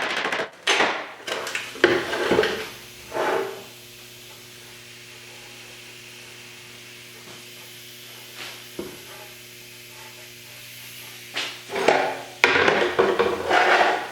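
Knocks and scrapes from working and handling a steel car body panel (a quarter valance). They come in a cluster over the first few seconds and again near the end, over a steady low hum.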